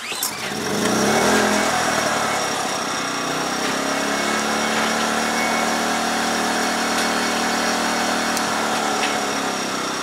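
Predator 2000-watt inverter generator's small 79cc four-stroke engine pull-started, catching at once and climbing in pitch over the first second or so. It then settles into a steady, even run.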